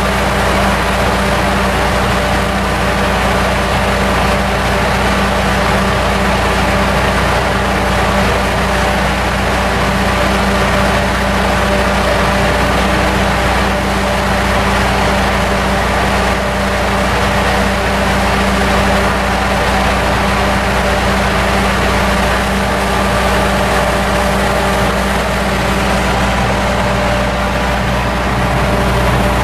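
Steady hum of the CP Holiday Train's diesel engine running, with several low tones that hold unchanged and no clack of wheels.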